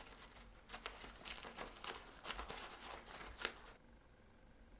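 Paper towel crinkling and rubbing as it wipes excess black marker off an engraved metal letter ring, in a run of short, faint scrubbing strokes that stop about a second before the end.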